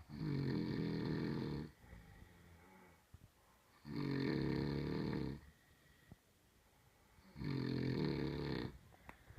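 A sleeper snoring heavily: three long, rattling snores about three and a half seconds apart, with quiet breathing out between them.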